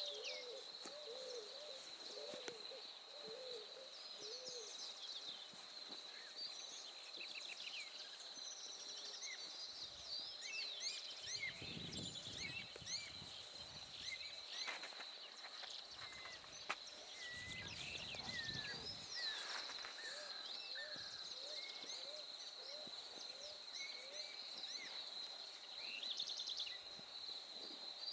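Countryside dawn chorus: many birds chirping and whistling over a steady high-pitched insect-like drone. A low hooting call repeats in quick series during the first few seconds and again in the second half. Two low rumbles come in the middle.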